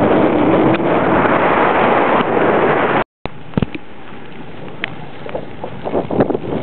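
Wind rushing over the microphone of a camera moving along a road. About three seconds in the sound cuts out for a moment, then comes back as a quieter steady rush with scattered small clicks and knocks.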